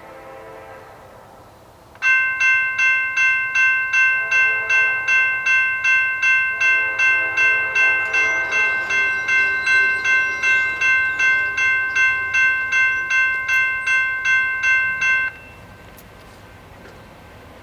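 Grade-crossing warning bell ringing rapidly and evenly, about two and a half strokes a second, for about thirteen seconds, then cutting off abruptly. Under and around it the approaching Norfolk Southern freight's horn sounds faintly in the distance.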